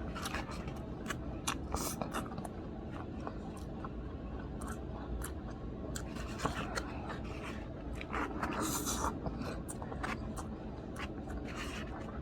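Close-up eating sounds: a run of small irregular clicks and scrapes of utensils and food being handled, with a denser scraping patch about eight seconds in.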